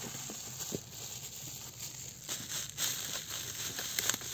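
Irregular crinkling and handling noise, with a few short clicks scattered through it.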